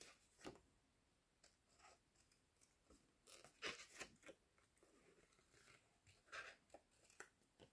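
Faint snips of small curved nail scissors cutting through paper card, in short irregular cuts with a small cluster of snips partway through.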